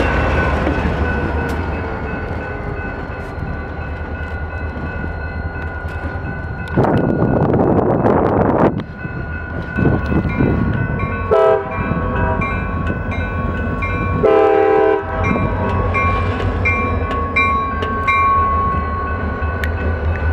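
CSX diesel locomotives rumbling past at grade crossings, with a two-second burst of loud noise about a third of the way in. Later the locomotive horn sounds a short blast and then a longer one, while a crossing bell rings in a steady rhythm of about one and a half strikes a second.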